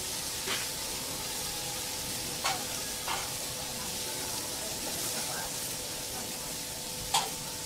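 Kobe beef steaks sizzling on a steel teppanyaki griddle, with four sharp clinks of the chef's knife and fork against the plate, the loudest near the end.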